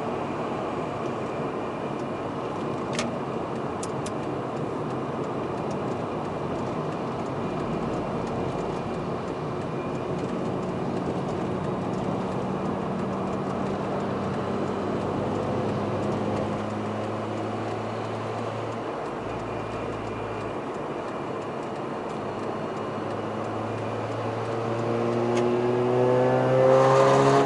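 Mazda RX-8's twin-rotor rotary engine running steadily with the revs drifting slowly, then revving up near the end. A couple of faint clicks come a few seconds in.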